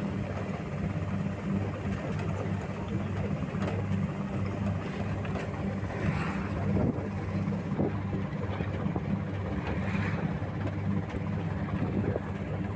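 A steady low motor hum over a rushing noise.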